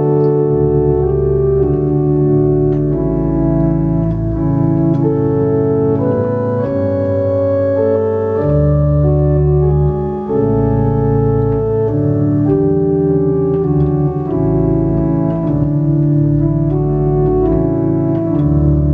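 Johannus digital organ played in sustained chords over a deep bass line, the chords changing every second or two.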